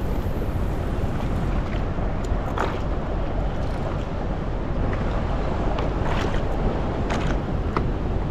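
Choppy sea lapping against a kayak hull in a swell, with wind rumbling on the microphone. A few brief sharp sounds stand out over the steady wash.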